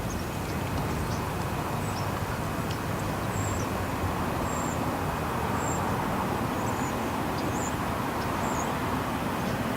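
Steady traffic and vehicle noise, with small birds giving short high chirps about once a second.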